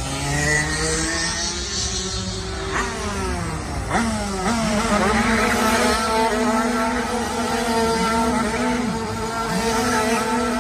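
Racing go-kart engines revving, their pitch rising and falling as the karts accelerate and lift off. From about four and a half seconds in, one kart's engine is held at high revs with small throttle dips as the kart spins donuts.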